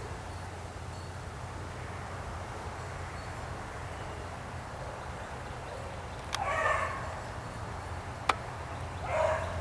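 A beagle bays twice: one short bay about six seconds in and another near the end. A single sharp click falls between them.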